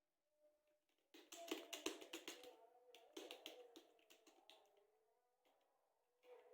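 Faint typing on a computer keyboard: a quick run of key clicks starting about a second in, thinning to scattered keystrokes after a few seconds.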